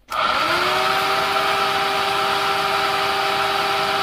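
KTM Duke 200 radiator cooling fan's 12-volt electric motor switched on, spinning up within half a second to a steady whine over a rush of air. It runs smoothly, its rusted, seized bearings freed with oil and kerosene.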